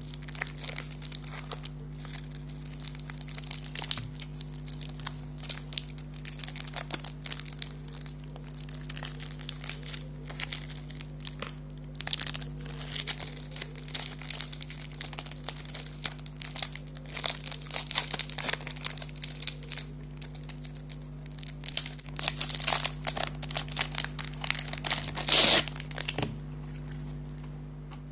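Plastic wrappers of chocolate biscuit and cake packets crinkling and tearing as they are opened by hand, in irregular bursts with louder stretches, over a steady low hum.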